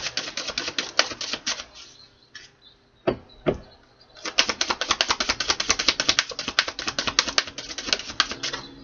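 A deck of oracle cards being shuffled by hand: rapid crisp clicks of cards slapping together, about eight a second. The shuffling breaks off about a third of the way in, and there are two dull knocks, before it starts again.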